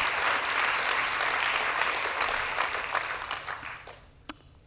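Audience applauding, the clapping dying away about four seconds in, followed by a single click.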